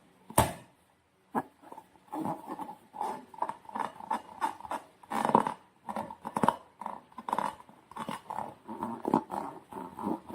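Slime and rubber balloons being handled and squeezed: irregular squeaks and squelches, with one sharp snap about half a second in.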